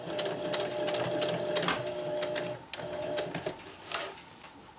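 Electric domestic sewing machine stitching through ripstop nylon, running for about two and a half seconds, pausing briefly and running again for under a second while it locks the stitch at the end of a seam. Near the end, a brief rustle as the nylon is pulled out from under the presser foot.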